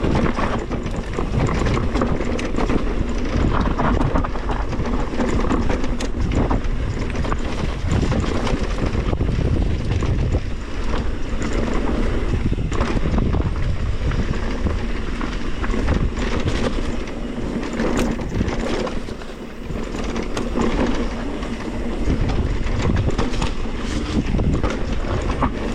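Mountain bike descending a rough dirt trail: tyres rolling over the ground with a continuous clatter of chain and frame rattling over bumps, easing for a moment about two-thirds through.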